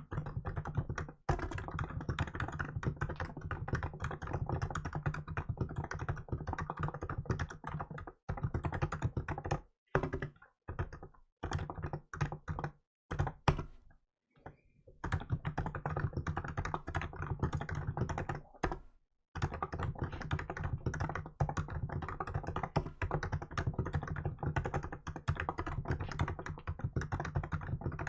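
Fast, continuous typing on a Hansung GK868B electrostatic capacitive keyboard with milk keycaps, keystrokes running together with a few short pauses in the middle.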